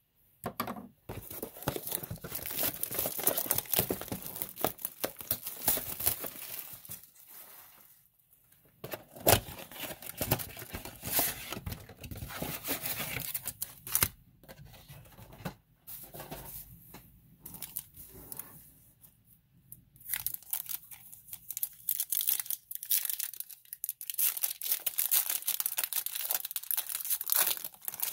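Cardboard box packaging and foil trading-card pack wrappers being torn open and crinkled by hand, in irregular crackling bursts with brief lulls about eight and fifteen seconds in.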